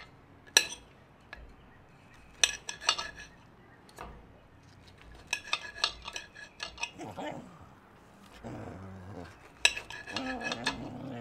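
Knife slicing kielbasa on a plate, the blade clicking against the plate in short runs of taps. A few short, pitched, voice-like sounds come in the second half.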